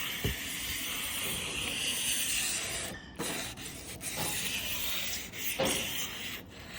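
Aluminium-oxide plumber's emery cloth rubbed hard along the rough cut edge of a Tesla Cybertruck's stainless-steel body panel: a steady abrasive hiss in two long strokes with a short break about three seconds in, rounding the sharp edge over.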